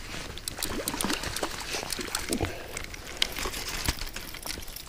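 A hooked brook trout thrashing and splashing in a shallow stream as it is reeled in on a spinning reel: a run of many quick splashes and ticks.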